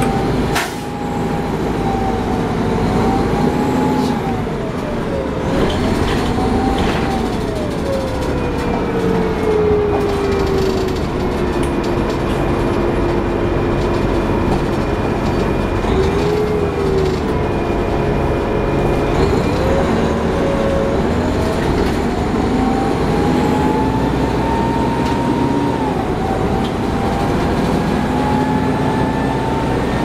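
Inside a 1994 TMC RTS transit bus under way: its Detroit Diesel Series 50 engine and Allison VR-731 transmission running over a steady road rumble. A drivetrain whine falls slowly in pitch through the first half, holds low, then rises again in the second half.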